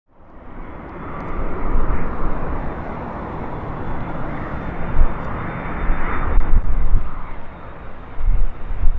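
Airbus A330-300 twin-engine jet on landing approach passing close by. Its engines make a loud, steady jet noise over a deep uneven rumble, with a thin high whine, swelling in over the first two seconds.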